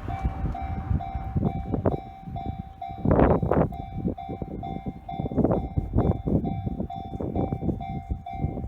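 Japanese railroad crossing's electronic warning bell ringing, a steady tone repeating two to three times a second, while a Yamanote Line train rumbles through with its wheels knocking over the rail joints. A louder burst of train noise comes about three seconds in.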